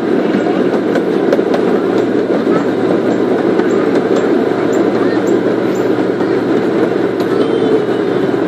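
A zoo train rolling along, heard from its open passenger car: a steady rumbling noise with scattered light ticks.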